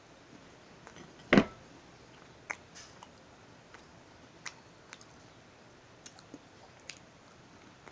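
A single dull knock about a second and a half in, then a few scattered small clicks and taps as the halves of a cream-filled chocolate sandwich cookie are picked up off a plate at a table.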